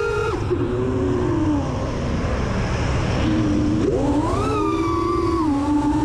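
FPV racing quadcopter's brushless motors and propellers whining, the pitch dropping sharply just after the start as the throttle is cut, a noisy rush of air in the middle, then the whine gliding back up about four seconds in as the throttle comes back on. A steady low rumble runs underneath.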